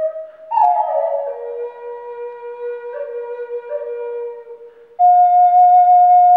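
Ash-wood Native American-style flute (pimak) in B, tuned to a minor pentatonic scale, playing a slow melody of held notes. After a short break for breath, the notes step down to a long low note that fades away, then a louder, steady higher note is held from about five seconds in.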